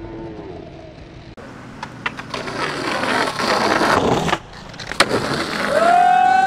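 Skateboard riding along a rough concrete ledge: a loud scraping rush of wheels and trucks on concrete, then a sharp clack about five seconds in as the board comes down. Near the end a long, held yell of cheering from onlookers.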